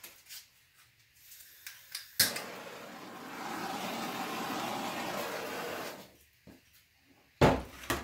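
Handheld butane torch lighting with a click, then hissing steadily for about four seconds as it is passed over a wet acrylic pour, before it cuts off. A single thump follows near the end.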